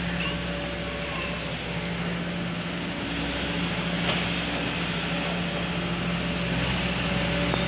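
Kobelco SK140 excavator's diesel engine running steadily, a constant hum.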